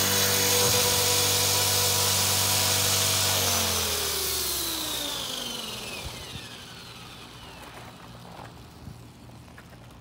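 Blade 330S RC helicopter's X-Nova XTS brushless motor and rotor head running with a steady whine, then spooling down from about three and a half seconds in, the whine falling in pitch and fading as the throttle is cut.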